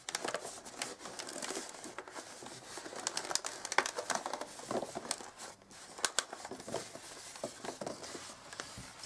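Inflated long latex modelling balloons (260 size) rubbing against each other and against cotton gloves as they are pressed and twisted into shape: a quiet, irregular run of soft crinkles and creaks.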